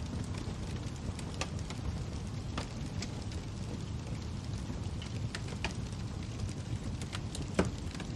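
Wood fire crackling: a steady low rumble with irregular sharp pops, one louder pop near the end.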